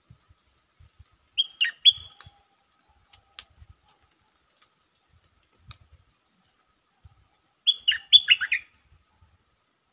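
Stripe-throated bulbul calling: two loud bursts of quick, falling whistled notes, each about a second long, one near the start and one near the end. Faint low knocks sound between them.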